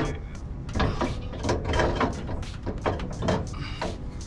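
A rapid, irregular series of metal knocks and scrapes, about three or four a second, as a Dobinsons IMS coilover strut is worked by hand into the front suspension of a Lexus GX470.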